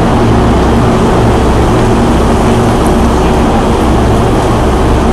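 Steady low hum and rumble of electric trains at a station platform: a locomotive pulling slowly in beside a standing commuter electric train.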